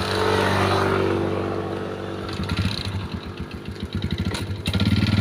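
A motorcycle engine running, a steady low hum that turns into a fast, uneven chugging about two seconds in and gets louder near the end.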